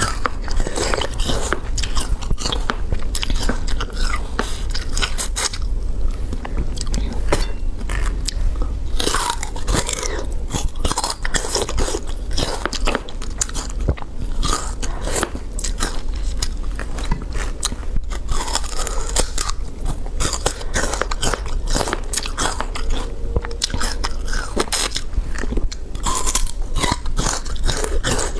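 Close-miked crunching and chewing of peeled sugarcane: repeated sharp bites and the fibrous cane being chewed.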